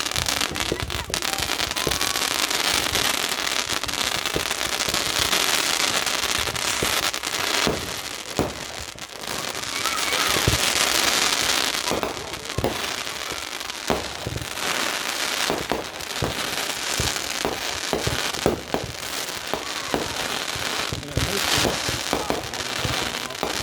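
Fireworks going off: dense, continuous crackling with many sharp pops and bangs, swelling in two loud stretches, one a few seconds in and another about halfway through.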